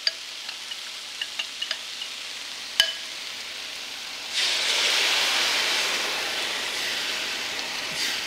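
Lion's mane mushroom pieces sizzling quietly in a hot, nearly dry pan, with small pops and one sharp click. About four seconds in, a marinade is poured over them and hits the hot pan with a sudden loud sizzling hiss that slowly dies down as the pan is deglazed.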